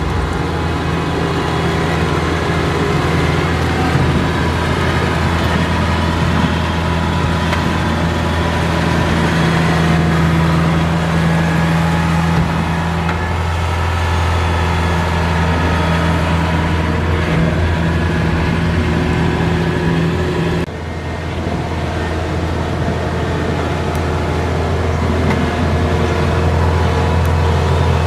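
Kubota DC70 rice combine harvester's diesel engine running steadily at working speed as the machine travels on its tracks, with a deep, even hum. About two-thirds through the sound changes abruptly and drops a little in level.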